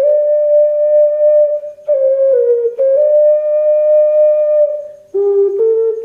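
Tenor F wooden ocarina playing a slow melody in long held notes with a clear, pure tone. The phrase fades out about five seconds in, and a new one begins just after.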